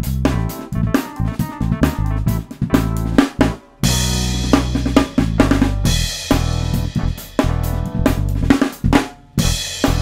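Funk instrumental: an acoustic drum kit plays a groove of bass drum, snare, hi-hat and cymbals under a heavy bass line and short, choppy keyboard chords. The band stops dead for a beat twice, just before four seconds and about nine seconds in.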